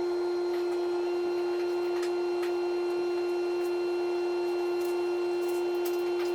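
Dual-action (DA) sander running at a steady speed with a constant whine, sanding body filler.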